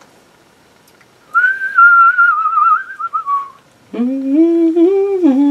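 A person whistling a short wavering tune for about two seconds, then humming a few held notes after a brief pause.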